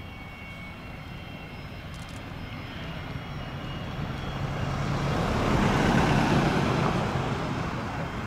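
Pilatus PC-24 business jet's twin Williams FJ44 turbofans running as it rolls along the runway after landing, the jet noise swelling to its loudest about six seconds in, then easing off.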